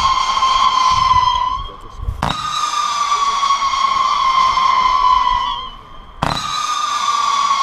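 Röder-Feuerwerk 'Tinnitus' firework battery firing single whistling shots. Each shot is a sharp launch thump followed by a whistle lasting three to four seconds whose pitch sinks slightly before it stops. One whistle ends shortly after the start, and two more shots follow about four seconds apart.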